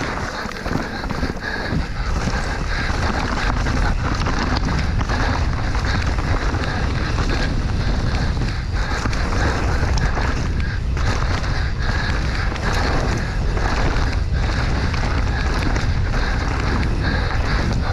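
Wind buffeting the rider's camera microphone during a fast mountain-bike descent, mixed with steady tyre and trail noise from the bike.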